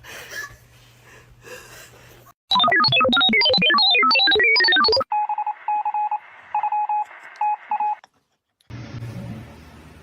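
A fast run of electronic beeps jumping up and down in pitch for about two and a half seconds. Then comes a steadier beeping pattern of two tones that switch on and off for about three seconds before cutting off.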